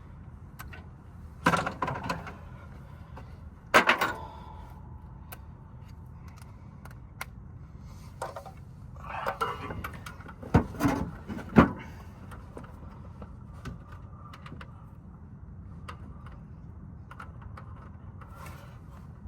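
Metal hand tools and sockets clinking and knocking as they are handled and fitted, with a short ringing clink about four seconds in and two sharp knocks just past the middle, over a steady low hum.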